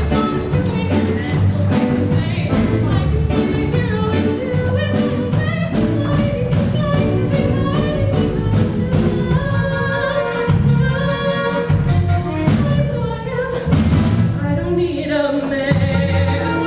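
Show choir singing over an upbeat instrumental accompaniment with a steady beat.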